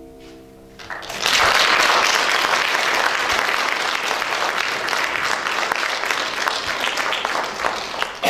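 A held musical chord fades out. About a second in, an audience breaks into applause and keeps clapping steadily.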